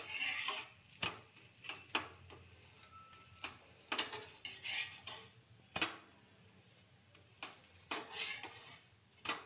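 Flat steel spatula clinking and scraping on an iron tawa as a thepla is pressed and turned: about a dozen sharp, irregular knocks, some with a short sizzle of oil after them.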